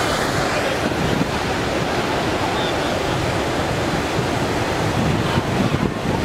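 Flash floodwater rushing through the piers of a concrete bridge, a steady, dense churning noise, with wind buffeting the microphone.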